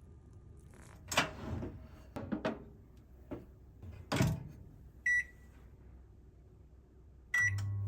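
Several knocks and clatters of an appliance being handled, then two short high electronic beeps from a microwave oven's control panel. A low hum starts with the second beep as the microwave begins running.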